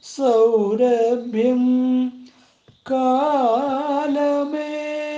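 A solo voice singing a Malayalam song without accompaniment: one sung phrase, a short breath about two and a half seconds in, then a phrase with wavering ornaments that settles into a long held note near the end.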